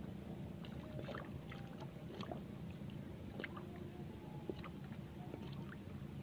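Water lapping and sloshing against a small outrigger boat, with scattered light clicks and knocks over a steady low hum.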